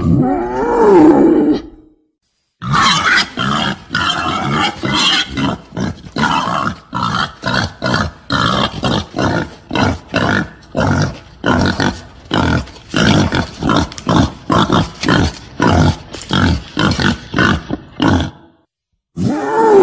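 Wild boar recorded as a hunting lure call: a pitched call rising and falling in pitch for about the first two seconds, then, after a brief gap, a long run of rapid short grunts, roughly two to three a second, that stops shortly before the end, where another pitched call begins.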